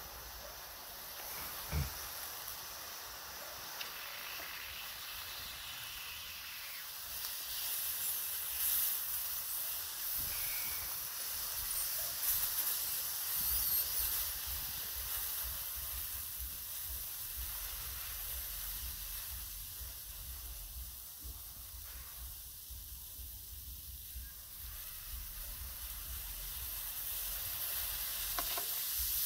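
Steady hiss and sizzle from a heated sword blade resting on a foam squishy toy, growing louder toward the end, with a low rumble underneath. A brief knock comes about two seconds in.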